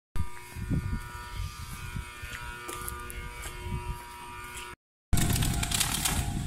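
Electric train of the Choshi Electric Railway standing at the platform, its on-board equipment giving a steady buzzing hum with several held tones. The sound breaks off about four and a half seconds in, and after a short gap louder train noise with one steady tone begins.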